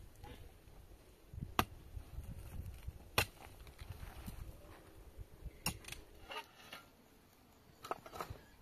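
Hand pick (mattock) striking hard, dry, stony soil: sharp chopping thuds, about five, at irregular intervals of one and a half to two and a half seconds, with a quick double strike near the end.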